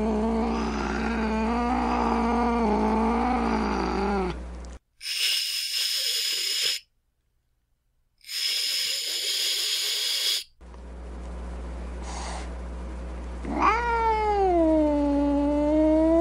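Angry domestic cat. It moans in a long, wavering call that falls in pitch and trails off after about four seconds. Then come two hisses of about two seconds each, with a short silence between them. Near the end a drawn-out yowl rises sharply and then holds.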